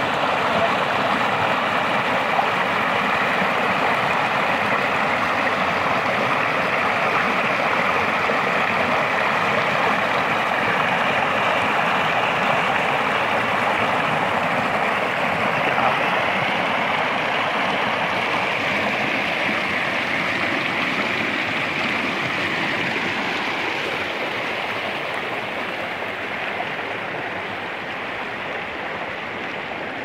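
Shallow rocky stream rushing and splashing over stones, a steady rush of water that grows somewhat fainter in the second half.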